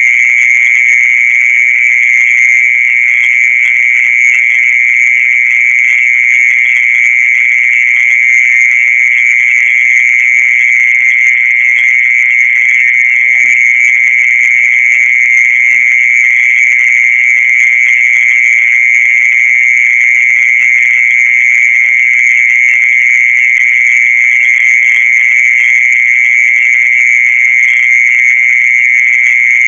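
Mole cricket singing: one continuous, steady, high-pitched trill that never breaks. This is the night sound popularly taken for an earthworm's voice.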